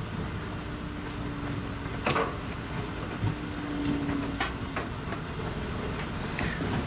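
A small motor hums twice, about a second and a half each time, and each run ends at a sharp click. A steady low rumble runs underneath.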